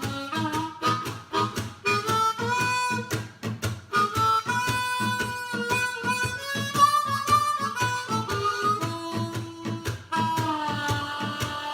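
Harmonica playing a blues riff with bent notes over a steady rhythmic accompaniment.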